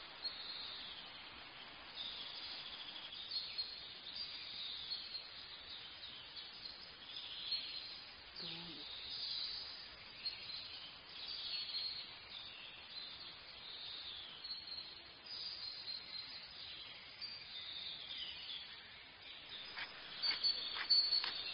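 Birds chirping on and off over a faint outdoor ambience. A few short clicks come near the end.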